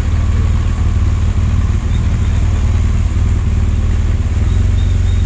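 BMW R1200 GS Adventure's boxer-twin engine running steadily at low revs while the motorcycle rolls slowly, a loud, even low rumble heard from the rider's seat.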